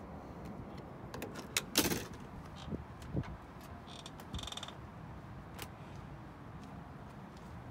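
Clicks and knocks from the door of a Lincoln Continental Mark IV being handled, loudest about two seconds in, with a brief high squeak about four seconds in.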